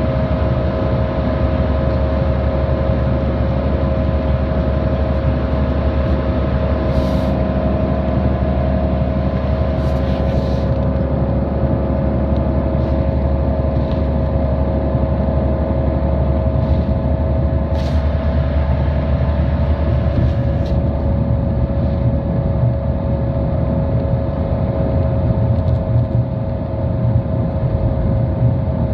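City bus (TheBus #194) heard from inside, running at a steady pace: a constant low engine rumble with a steady whine, and a few brief clicks and rattles.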